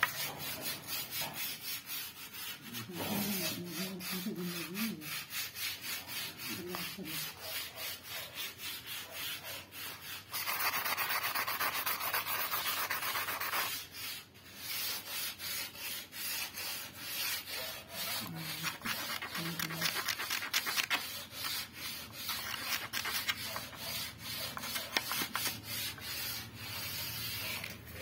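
Teak wood being rubbed smooth by hand in quick back-and-forth strokes, about two to three a second, a dry scratchy rasp. After about ten seconds it runs on more steadily and louder for a few seconds.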